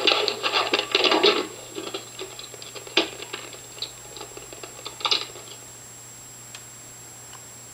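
Camera handling noise: rustling, scraping and clicking right against the microphone, dense for about a second and a half, then scattered clicks and a short burst of rustling about five seconds in.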